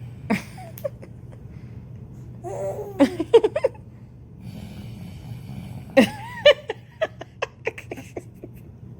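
A person laughing in short bursts over a steady low hum: a pitched laugh about three seconds in, then another about six seconds in that trails off in a string of quick, fading bursts.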